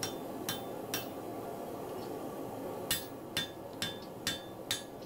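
Hand hammer striking red-hot steel on the anvil and a cone mandrel, each blow a sharp metallic clank with a short ring: three blows about half a second apart, a pause of about two seconds, then five more at about two a second. The blows are forge-welding the thinned, scarfed ends of a throwing axe's eye ring together.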